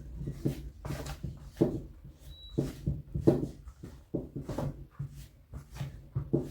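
Hands mixing flour, fat and hot water into chapati dough in a bowl: irregular short squishing strokes, about one or two a second, over a steady low hum.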